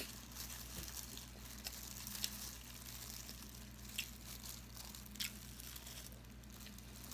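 A person chewing food close to the microphone: a few short, sharp mouth clicks and smacks spaced a second or more apart, over a steady low hum.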